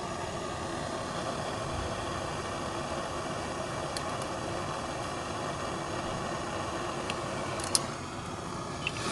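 Handheld gas torch burning with a steady hiss while it heats an eyeglass frame to free a broken hinge; the hiss cuts off abruptly at the end. A couple of light clicks sound over it.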